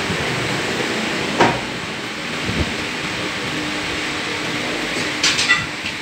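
Steady running hum of a steel roller bending machine in a metal shop. Steel flat bar clanks against metal about a second and a half in, and again as a quick run of clanks near the end.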